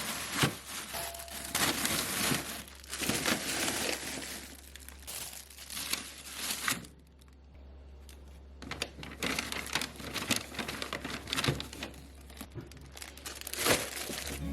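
Plastic wrapping or bags crinkling and rustling as they are handled, in several spells, with a quieter pause about seven seconds in.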